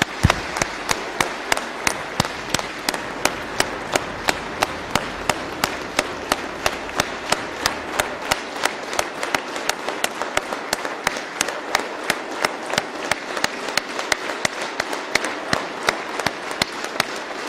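A large audience applauding: dense clapping that beats in unison, about three claps a second.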